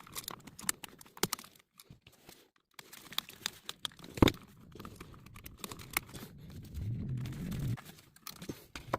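Small clicks, taps and rustling of hands working electrical wires and a single-pole wall switch, with one sharper click about four seconds in and a brief low hum near the end.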